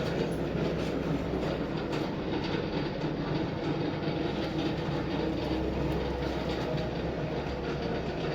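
Heritage railway train running on the track: a steady rumble with some wheel clatter.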